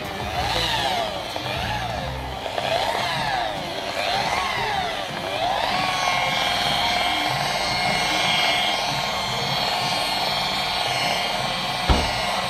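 Electric car polisher (buffer) running with its foam pad on the paint, spreading and working in buffing compound. Its motor whine rises and falls in pitch about four times, then holds at a steady speed, with a brief knock near the end.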